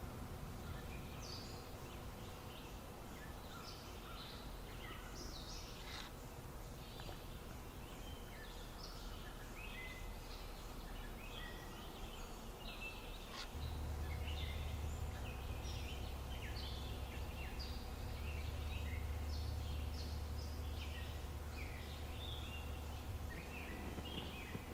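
Several small birds singing and chirping at once, with a low rumble coming in about halfway through.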